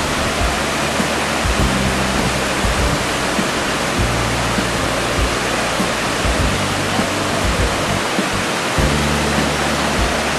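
Waterfall and the cascades below it: a steady rush of falling water. Low held background-music notes underneath, changing every couple of seconds.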